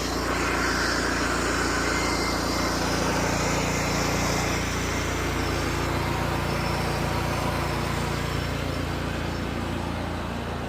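Pressure washer's engine running steadily, with the hiss of water and soap spraying from the wand, strongest in the first few seconds.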